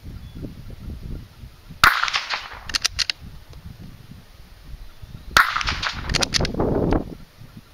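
Two .22 LR shots from a bolt-action Marlin Model 80 rifle, about three and a half seconds apart, each with a short echo. Each shot is followed about a second later by a quick run of metallic clicks as the bolt is worked to chamber the next round.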